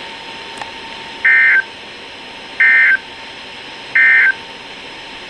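Emergency Alert System digital end-of-message data bursts: three identical short, shrill warbling tone bursts about a second and a half apart, marking the end of the warning.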